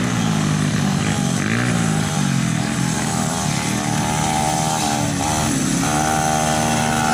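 Pit bike engine running and revving, its pitch rising and falling, then holding steadier and higher from about six seconds in.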